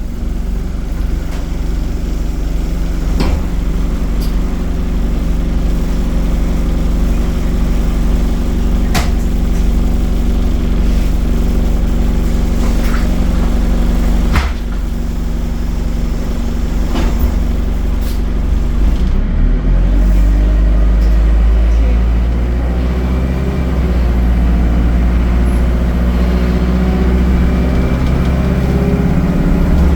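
ADL Enviro200 bus engine running steadily, with a few sharp knocks or rattles. About twenty seconds in, the engine gets louder and deeper and its pitch climbs as the bus accelerates.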